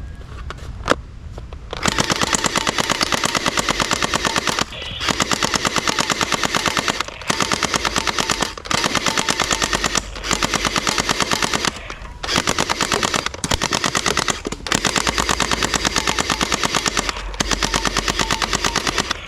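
Toy machine gun firing, a rapid rattle of clicks in repeated bursts of one to three seconds with short pauses between them.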